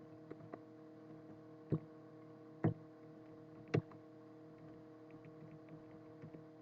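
A few faint, sharp clicks from working a computer at a desk, spaced about a second apart, over a steady low electrical hum.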